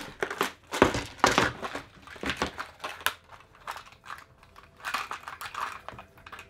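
Handling noise: a soft plastic bait bag crinkling, then a clear plastic compartment tackle box being opened and picked through, with irregular plastic clicks and rattles and one sharp click about three seconds in.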